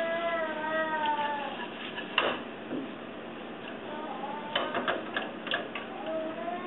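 Cooking chopsticks knocking against a frying pan while green pepper and pork strips are stir-fried: one sharp knock about two seconds in, then a quick run of clicks a little later. A high, wavering drawn-out tone sounds over the first second and a half and again at the very end.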